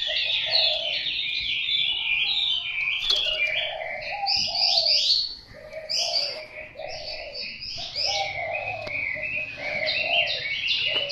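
Caged Chinese hwamei singing a continuous, fast run of varied, sweeping chirps, with a lower series of notes underneath; the song briefly drops away about five and a half seconds in.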